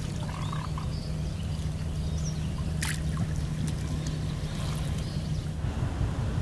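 Steady low engine hum from a moored fishing boat, with water lapping against the hulls. Near the end the hum drops out and a rougher rushing noise takes over.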